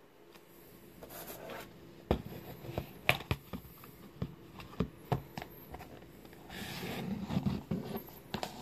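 A sunglasses case being handled and opened and a pair of aviator sunglasses taken out: a run of sharp clicks and taps with rubbing and rustling in between.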